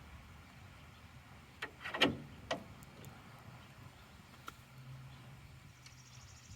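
A few sharp metallic knocks from hand tools and steering parts being handled during tie rod work, clustered about two seconds in. The loudest knock has a short falling ring, and one light tick follows later, over a quiet outdoor background.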